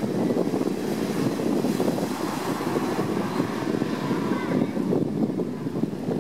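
Wind buffeting the microphone in an uneven rush, with small waves washing over a rocky pebble shore.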